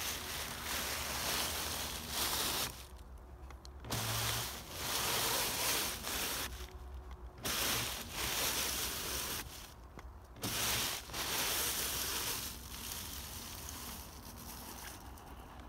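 Dry leaves rustling and crunching as a Traxxas TRX-4 RC crawler's tyres churn through a thick layer of them, in bursts of a second or two with short pauses between. The sound is quieter in the last few seconds.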